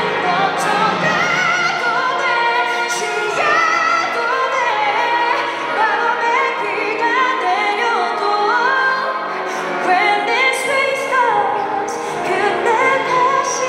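Female pop vocalist singing a slow ballad live through a handheld microphone, her voice held and wavering in vibrato, over a bowed string orchestra accompaniment.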